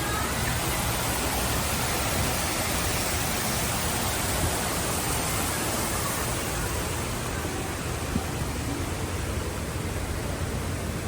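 A steady rushing noise that stays even throughout, with no distinct events.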